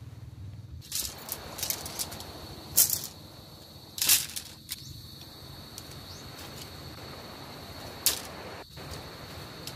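Tent poles clacking as a bundle of them is handled and laid out: a few sharp knocks, the loudest about 3 and 4 seconds in and another near the end, over a steady hiss.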